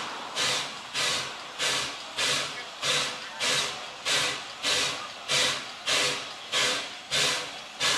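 Exhaust of an oil-fired 4-4-0 American-type steam locomotive chuffing at a steady, slow beat of about one and a half chuffs a second. Each chuff is a sharp hiss that fades before the next.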